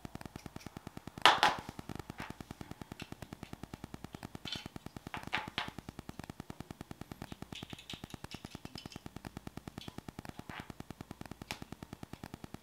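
Background synth music with a fast, steady pulse. Over it, a few sharp scrapes and clicks of a hobby knife shaving a 3D-printed plastic part and of the small parts being handled, the loudest about a second in.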